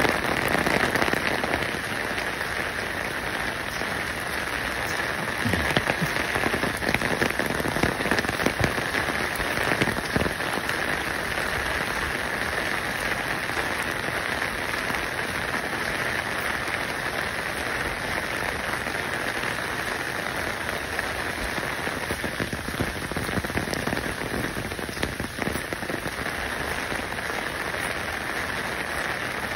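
Steady water noise: a dense, even pattering hiss like rain, with no pauses.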